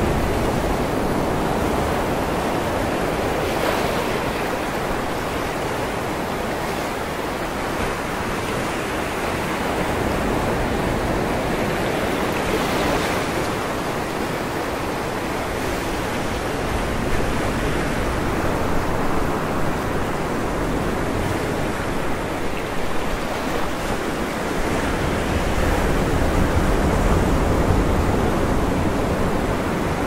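Sea waves breaking and washing onto the shore: a steady rushing surf that swells and eases every few seconds.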